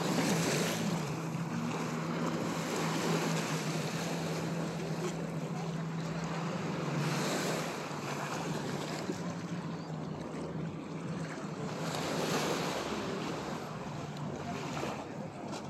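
Small waves washing onto the shore, swelling every few seconds, with a steady low drone from jet skis on the water that fades out about halfway through. Wind buffets the microphone.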